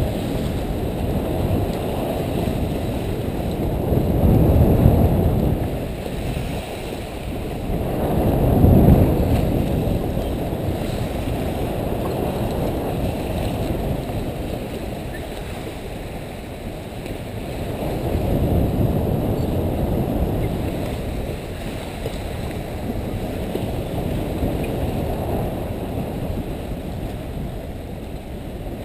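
Water rushing and splashing past a sailing yacht's bow, heard from a camera out on the bowsprit, with wind buffeting the microphone. It swells louder three times, a few seconds apart.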